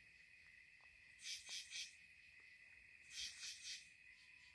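Night insects calling: a steady high cricket trill, with another insect's call in groups of three quick pulses repeating about every two seconds.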